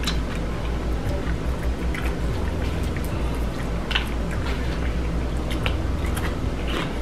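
Close-up eating: crunching and chewing of crispy deep-fried chicken, with scattered sharp crunches, over a steady low hum.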